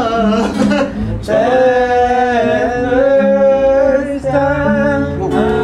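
A man singing a slow R&B song, holding one long, slightly wavering note for a few seconds, over acoustic guitar chords.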